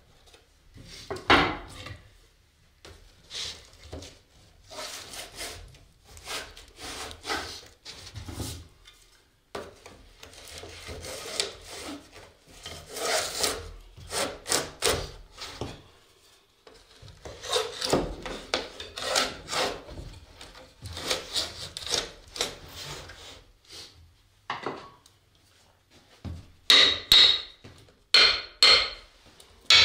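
Wood scraping and rubbing on wood in irregular strokes as wooden laths and wedges are pushed and slid under the cords that clamp a freshly glued guitar soundboard. Near the end come several sharp hammer taps on the wood, driving the wedges tight.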